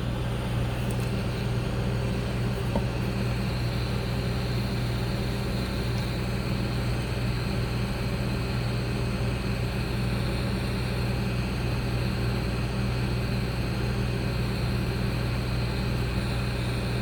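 Hot-air heat gun blowing steadily, a constant rushing fan noise with an electrical hum underneath, while heating flux on a laptop logic board.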